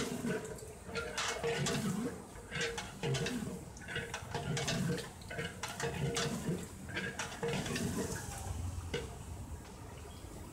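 Long metal ladle stirring a thick curry in a large aluminium pot, scraping and knocking against the pot's sides in irregular clanks.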